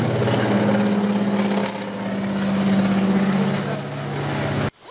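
Small propeller-driven aircraft droning overhead, a steady engine tone that drops slightly in pitch about three seconds in as the plane passes. It cuts off suddenly near the end.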